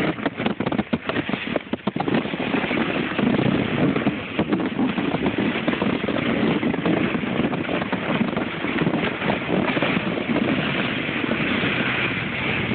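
Plastic sled sliding over snow: a continuous rushing scrape, choppy for the first couple of seconds and then steady.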